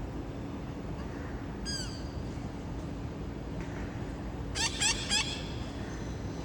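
Parrots squawking: one harsh call about two seconds in, then a quick run of three louder calls near the end, over steady low background noise.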